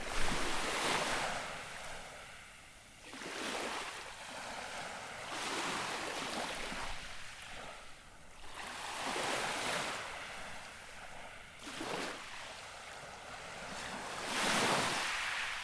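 Small, gentle waves lapping on the shore, each one a soft hissing wash that swells and fades, about six of them coming every two to three seconds.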